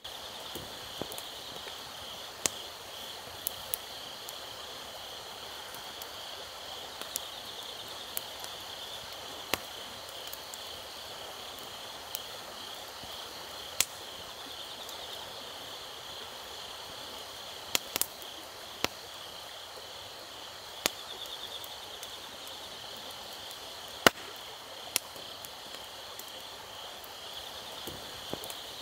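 Wood campfire crackling, with sharp irregular pops and snaps. Under it runs a steady chorus of crickets chirping.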